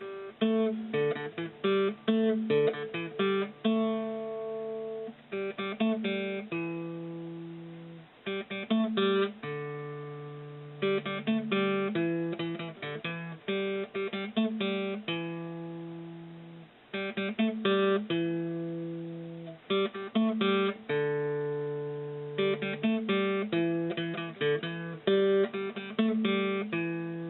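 Background music: acoustic guitar picking a melody over held bass notes.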